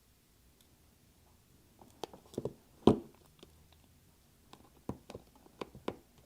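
Small sharp clicks and taps of an iPhone and its parts being handled during screen reassembly, with one louder knock about three seconds in and a run of light clicks near the end.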